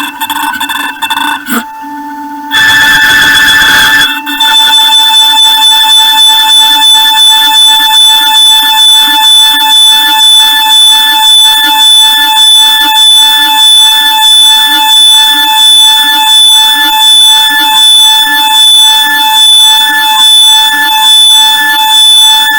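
Milling cutter squealing as it cuts steel on a DIY CNC mill: a loud, steady high-pitched whine that pulses about one and a half times a second. Early on it gives way to a short rush of noise for about a second and a half before the squeal resumes.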